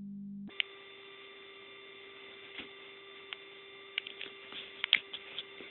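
Steady electrical hum with a few small clicks scattered through it, the loudest ones clustered near the end; there is no clear snoring.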